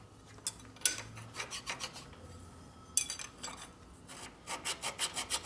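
Metal engine gasket surface being dressed down by hand to knock off high spots so that it seals. There are scattered scrapes and a sharp knock about three seconds in, then steady back-and-forth rasping strokes at about three a second near the end.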